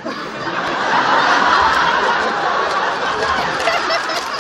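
An audience laughing together, swelling about half a second in and tapering off near the end.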